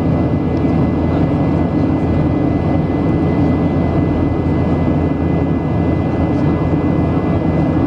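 Steady cabin noise of a Boeing 737 in flight, heard from inside the cabin: the jet engines running and rushing air, with a thin steady high tone on top.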